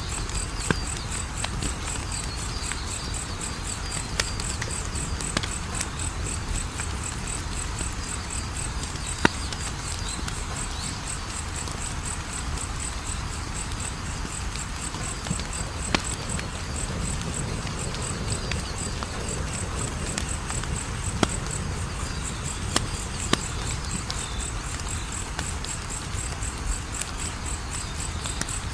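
Wood fire crackling, with sharp pops every second or two over a low rush, while a cricket chirps steadily in a high, evenly pulsing trill.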